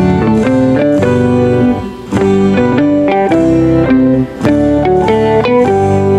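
Background music: a melody of plucked notes over a sustained bass line.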